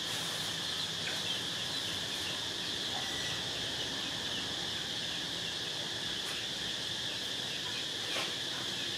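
Steady high-pitched insect chorus, an even drone that holds unchanged throughout.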